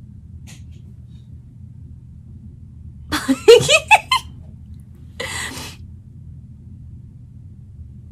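A woman's short, choppy burst of laughter about three seconds in, followed by a breathy exhale, over a low steady hum.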